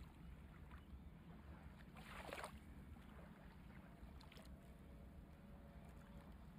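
Near silence: a faint steady low hum, with one brief soft rustle about two seconds in.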